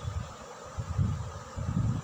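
A semolina dosa sizzling on a hot griddle: a steady hiss with a faint buzzing tone in it, over an uneven low rumble.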